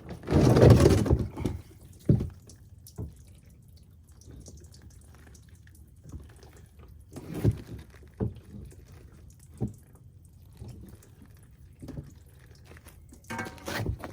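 Engine coolant draining and dripping from a 1993 Chevy pickup with its radiator removed: a louder rush of noise in the first second, then scattered single drips every second or two.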